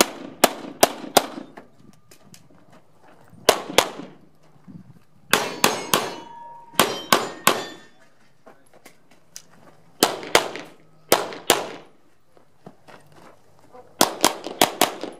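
Glock 17 9mm pistol fired in quick pairs and rapid strings. A steel target rings briefly about six seconds in.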